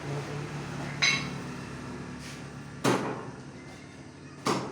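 Three sharp knocks, about one and a half to two seconds apart, the first with a brief bright ring, over a faint steady low hum.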